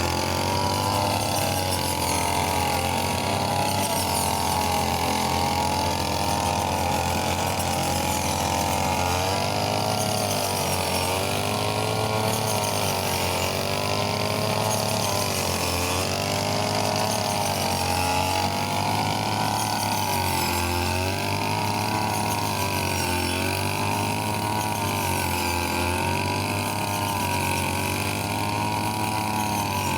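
Brush cutter engine running at speed while cutting rice stalks, its pitch rising and falling again and again, every second or two, as the load changes.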